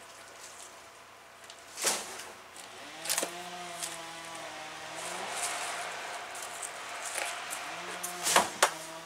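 A distant engine running, its pitch shifting up and down, with a few sharp knocks close by, the loudest a pair near the end.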